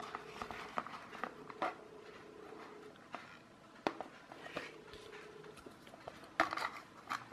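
Scattered light clicks and scrapes of hard plastic being handled, as a handheld fan's plastic casing and battery cover are fitted against a plastic toy boat hull; a louder flurry of clicks comes near the end.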